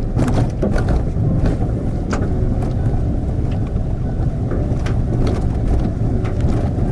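Suzuki Hustler kei car crawling over a rough, stony dirt forest track: a steady low rumble of tyres and running gear, broken by scattered knocks and clunks as stones pass under the wheels.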